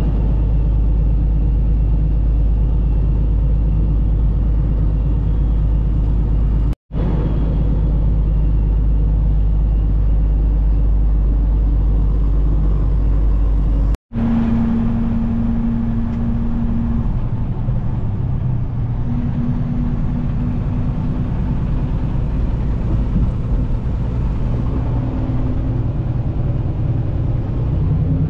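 Semi truck's diesel engine and road noise heard from inside the cab while driving, a steady low drone. It cuts out for an instant twice, and after the second break a steady hum note comes and goes.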